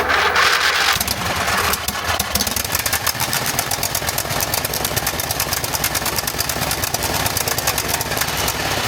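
Craftsman GT5000 riding mower's 22 HP Briggs & Stratton V-twin engine starting up suddenly after its carburetor was cleaned of a no-start fault. It then runs steadily with a fast, even firing beat.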